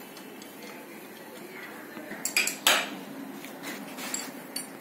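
Metal hand tools and loose engine parts clinking against the opened-up cylinder head of a Tata Ace Mega engine during teardown. A quick cluster of sharp clinks comes about halfway through, with a few lighter taps after it.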